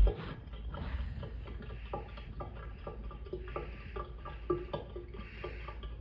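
Small splashes and bubbling from water around a 3D-printed model ship as it sinks, with short irregular plops and pops over a steady low hum.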